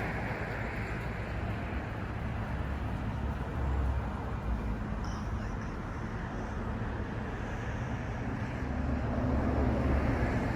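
Steady road noise of a vehicle driving, heard from inside the cab: a low engine and tyre rumble under a rushing hiss.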